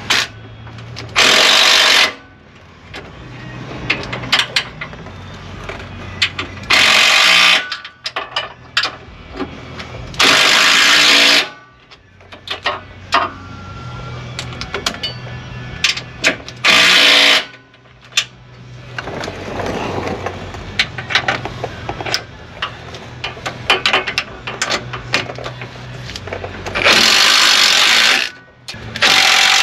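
Power impact wrench firing in six short bursts of about a second each, with small clicks and clinks of hand tools and parts between them, during front suspension work on a truck.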